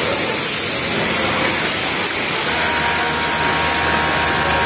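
Steady din of a garment factory floor with many sewing machines running. About halfway through, a Yamato industrial flatlock sewing machine starts up with a steady motor hum and runs on.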